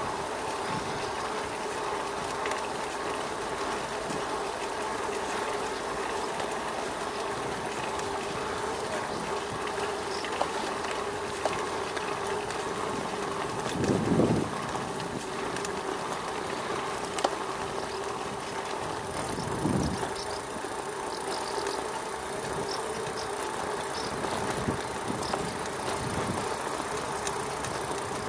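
Bicycle riding along a paved path: a steady rolling hum with road and wind noise, broken by two short low rumbles, about halfway through and again a few seconds later.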